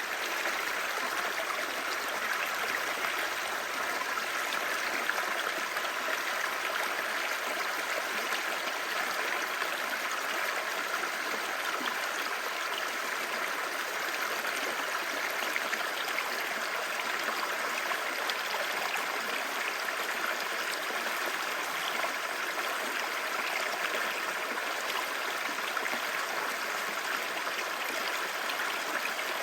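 Clear stream babbling steadily, an even rush of running water with no breaks.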